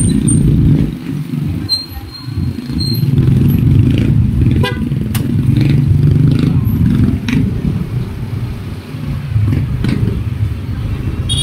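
Motor scooter engine running while being ridden slowly through traffic, with a steady low rumble of wind on the microphone. A short high-pitched tone sounds about two to three seconds in.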